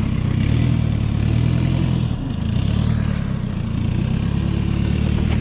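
Toyota Land Cruiser Prado's engine running at low revs as the 4WD crawls over rocks. It makes a steady low rumble whose revs rise and ease slightly.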